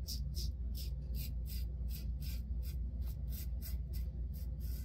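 Timeless 0.68 titanium safety razor scraping through lathered stubble on the cheek in short, light strokes, about three a second, during a second pass with no pressure applied. A steady low hum sits underneath.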